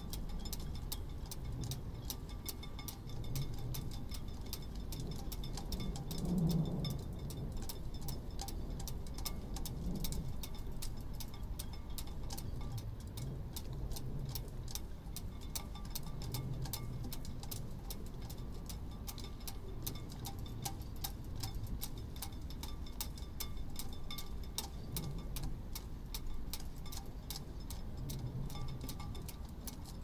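Ropes and halyards tapping against sailboat masts in a mild wind: an irregular ticking, a few clicks a second, over a low rumble of wind.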